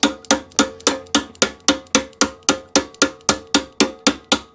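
Steady run of light hammer taps on a tight-fitting steel roller bracket of a lawnmower, about four a second, each with a short metallic ring, working the bracket free.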